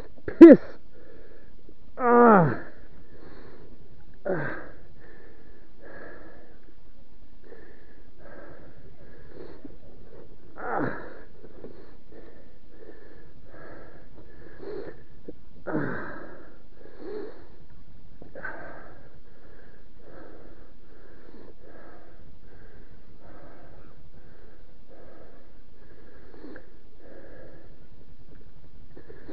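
A man's pained groans falling in pitch, then irregular wheezing, sniffing breaths about once a second as he recovers from a mountain-bike crash. A sharp knock comes just after the start.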